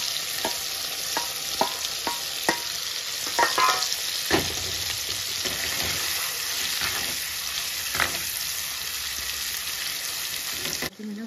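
Dried anchovies frying in hot oil in a clay pot: a steady sizzle, with a handful of sharp clinks as a steel slotted spoon stirs them against the pot. The sizzle cuts off abruptly near the end.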